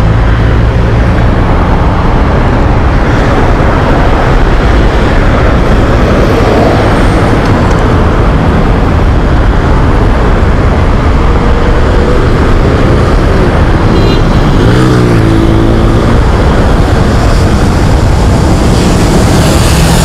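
Busy road traffic: a steady, loud rumble of cars and buses. About three quarters of the way through, one engine's pitch briefly rises and falls.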